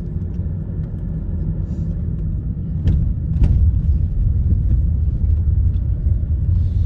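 Car heard from inside the cabin: a steady low rumble of engine and tyres as it rolls slowly forward, with two sharp clicks about three seconds in, after which the rumble grows a little louder.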